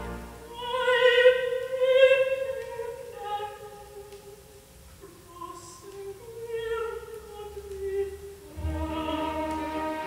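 Operatic classical music: a solo voice with orchestra, played from a vinyl record on a Garrard 301 turntable with SME 3012R tonearm and Ortofon SPU cartridge, heard through Klipschorn horn loudspeakers. Loud phrases early, a quieter passage in the middle, and the fuller orchestra swells back near the end.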